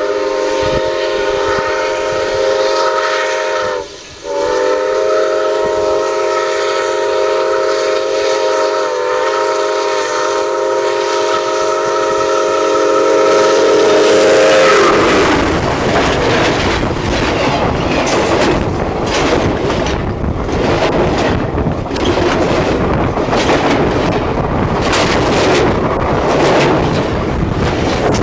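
Chime whistle of a QJ 2-10-2 steam locomotive blowing one long chord as it approaches, with a short break about four seconds in. About fifteen seconds in the whistle stops and the locomotive and its cars run directly over the camera: a loud, noisy rush of wheels and running gear with many sharp clicks.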